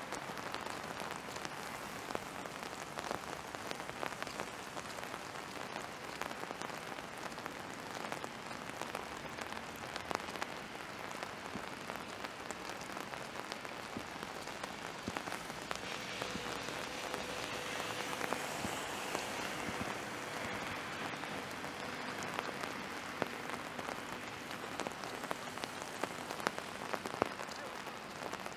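Steady rain falling, with many close drops ticking on a nearby surface. A little past halfway a louder hiss swells and fades over several seconds, with a faint steady tone under it.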